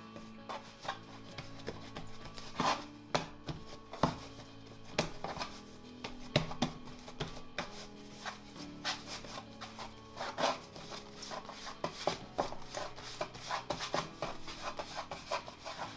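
Background music, over irregular knocks, taps and scraping of bread dough being handled and cut on a work surface.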